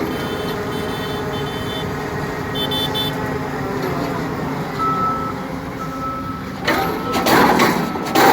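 Engine of a bore piling drill rig running steadily, with repeated short warning beeps. Near the end comes a burst of loud clattering, the loudest sound here.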